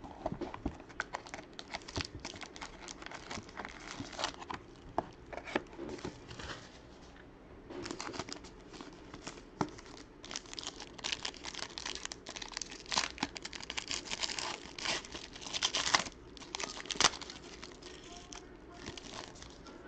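Plastic wrapping of a trading card box and its packs crinkling and tearing in irregular crackles. It gets busier and louder from about ten seconds in, with a few sharp rips near the end.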